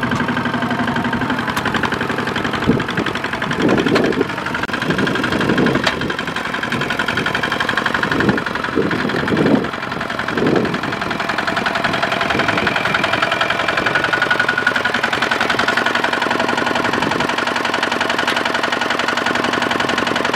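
Kubota ZT155 power tiller's single-cylinder diesel engine running with a fast, even knocking beat as it drags a loaded trailer through deep mud, with several louder surges between about four and ten seconds in.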